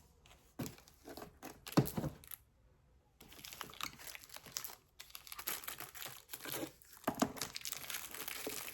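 Plastic wrapping crinkling and rustling as it is handled around the coiled beading-wire spools: a few sharp crackles, then a longer stretch of steady crinkling from about three seconds in.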